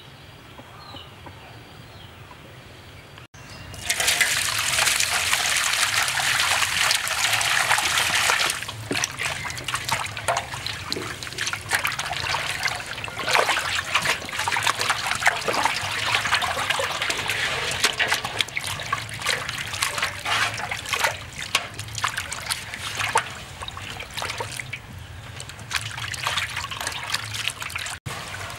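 Water poured from above into a metal basin holding a stingray, a loud steady rush starting about four seconds in. After a few seconds it gives way to irregular splashing and sloshing as the fish is rinsed by hand in the basin.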